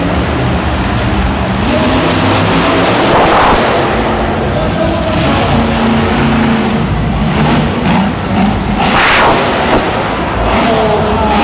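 Monster truck supercharged V8 engines revving in an arena, with music playing over the PA. The engines surge loudly twice, about three seconds in and again near nine seconds.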